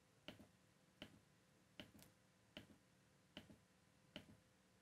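Faint clicks from the rotary encoder detents of a Behringer X32 mixing console, stepped one at a time, about one click every 0.8 seconds, as routing slots are scrolled.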